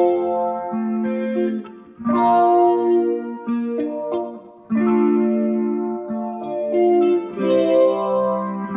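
Steel-strung solid-body tenor electric ukulele (Flight Vanguard) played through phaser and chorus effects with reverb on: chords struck about every two and a half seconds and left to ring, swirling from the modulation.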